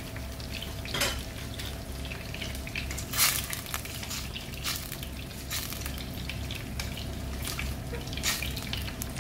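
Black plastic slotted spatula stirring rice and fried onions in broth in a stainless-steel pot, with short scrapes and knocks against the pot every second or so over a steady low cooking noise.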